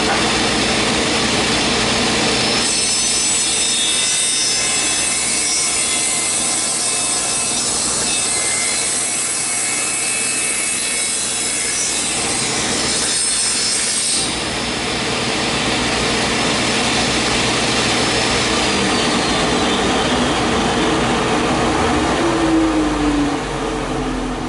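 Table saw running, its blade cutting through a wooden board for about eleven seconds, then running free and winding down near the end.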